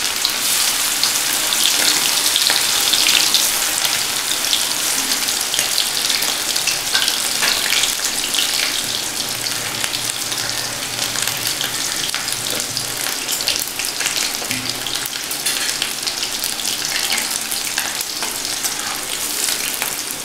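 Batter-coated chicken pakora pieces deep-frying in hot oil: a steady sizzle with constant fine crackling, a little stronger in the first few seconds as the pieces go in.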